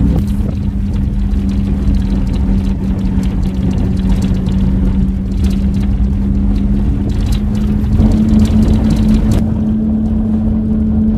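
Car engine and cabin noise while driving a rough, sandy dirt track: a steady engine hum over a low rumble, rising slightly in pitch about eight seconds in, with frequent knocks and rattles as the car jolts over the ground.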